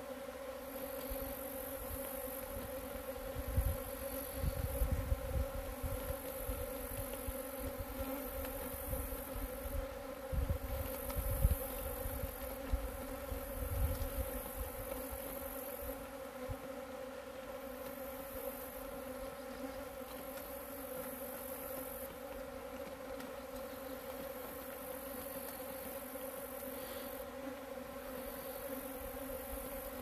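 Leafcutter bees buzzing, a steady hum, with low rumbles coming and going during the first half.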